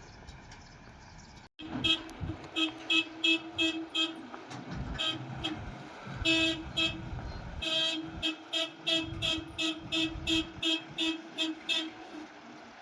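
A vehicle horn tooted over and over in short, uneven beeps, two or three a second, over a running engine. The beeping starts after a brief dropout about a second and a half in, which breaks off a low engine idle.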